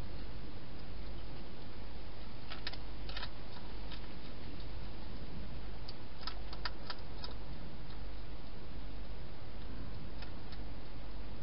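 Wild hedgehog crunching dry food inside a plastic feeding box: short sharp clicks and crunches, a few about three seconds in and a quick run of five or six around six to seven seconds in. A steady hiss and low hum lie under them.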